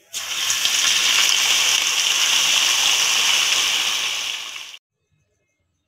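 A masala-coated rohu fish piece going into hot oil in a kadai, the oil sizzling loudly at once and bubbling steadily. The sizzle cuts off abruptly near the end.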